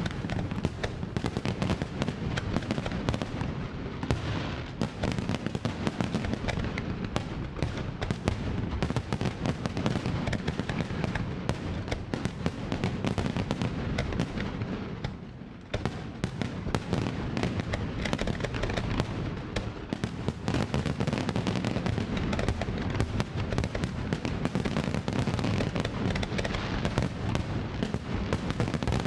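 Fireworks display: a dense, continuous barrage of bangs and crackling bursts, easing briefly about halfway through before picking up again.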